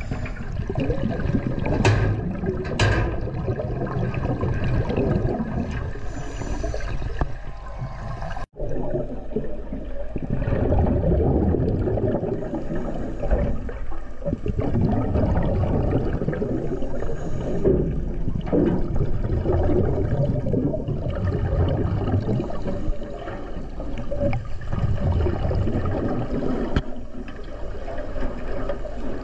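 Underwater water noise: a steady rushing and gurgling of water around the camera, with a couple of sharper bubbling spurts a few seconds in. It cuts out for an instant at about eight and a half seconds.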